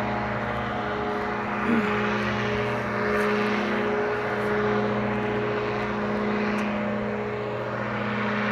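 Powered parachute's engine and propeller droning steadily overhead, swelling and fading slightly as the craft flies past. A brief rising chirp sounds about two seconds in.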